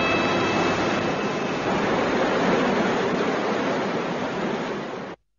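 Rough sea in a storm: a steady, dense rush of waves and spray, with the last of a music chord dying away at the start. It cuts off suddenly near the end.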